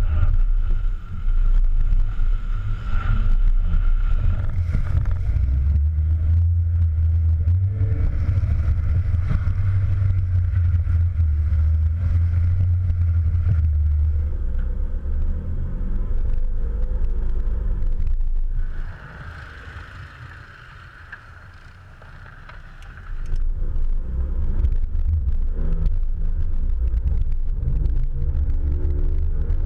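2014 Jeep Cherokee driving off-road over dirt and rock, its engine and tyres heard through a camera mounted on the outside of the vehicle, with a heavy low rumble. It drops much quieter for a few seconds about two-thirds of the way through, then comes back.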